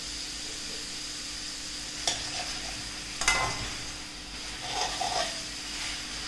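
Mutton and freshly added chopped tomatoes sizzling softly in oil in an aluminium kadai while a metal spatula stirs them, with sharp knocks of the spatula against the pan about two and three seconds in.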